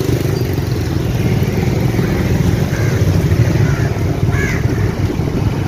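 Small motorcycle engine running steadily while riding, a dense low rumble with a fast flutter.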